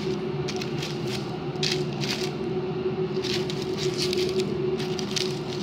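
Freshly baked cheese bread rolls crackling and squishing as they are squeezed and torn apart by hand, in short scattered crackles, over a steady low hum.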